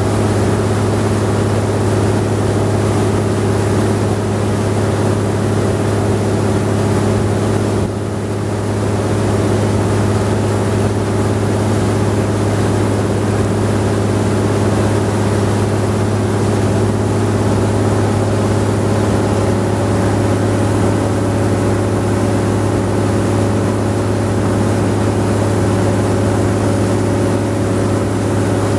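A wooden riverboat's engine running steadily under way, a loud, unchanging drone with a strong low hum.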